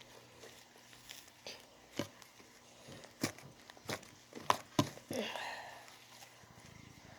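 Foamy shaving-cream slime being stretched and squeezed by hand, giving scattered sharp sticky clicks and pops, with a longer squelch about five seconds in.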